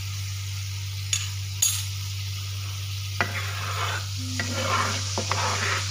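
Teriyaki sauce bubbling and sizzling in a nonstick frying pan as it reduces to thicken. A spatula clicks lightly twice, then stirs and scrapes through the sauce from about three seconds in. A steady low hum runs underneath.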